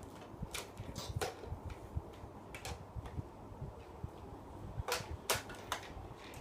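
A scattering of sharp clicks and taps over a low background rumble, about seven in all, the loudest two close together near the end.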